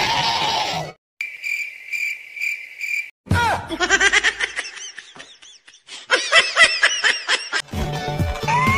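A short hiss, then cricket chirping for about two seconds, then about four seconds of rapid, high-pitched laughing. Near the end, music and a child's voice come back in.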